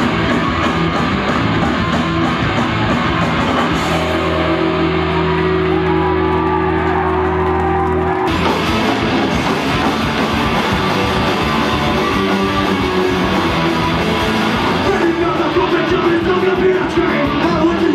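Live punk rock band playing loud rock with guitar, drums and singing. A chord is held for a few seconds before the full band comes back in.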